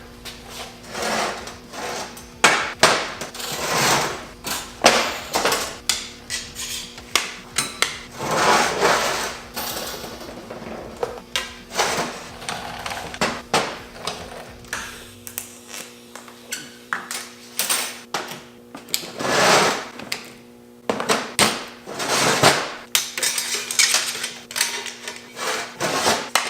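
Hammer blows on a steel tube being bent into a steering-wheel ring: many irregular strikes of varying force, some ringing briefly.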